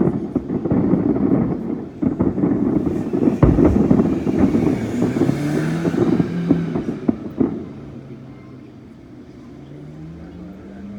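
Fireworks going off in a dense run of bangs and crackles, with one heavy low boom about three and a half seconds in. The barrage dies down after about seven seconds, leaving the steady hum of an engine whose pitch slowly rises.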